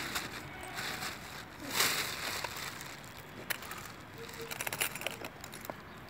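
Outdoor background noise with a brief rustling whoosh about two seconds in and a few soft clicks.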